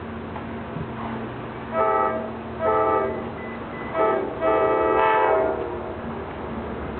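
Diesel freight locomotive horn (CSX GP38-2) sounding four blasts: two long, a short one, then a longer one, as a warning to track workers on the adjacent track. A steady low engine drone runs underneath.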